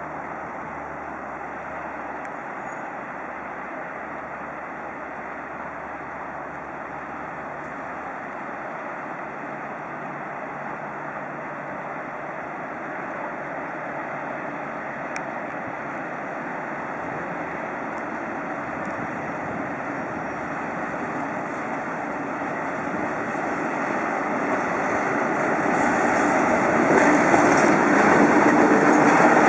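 SNCF BB 26000-class electric locomotive BB 26209 hauling a mixed freight train of tank and hopper wagons, its running noise growing steadily louder as it approaches and passing close by near the end.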